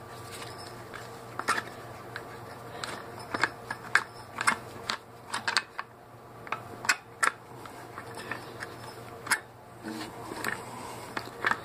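Irregular light metallic clicks and taps of a screwdriver working against the small sheet-metal fan blades and mounting nuts of a film projector's motor, over a faint steady hum.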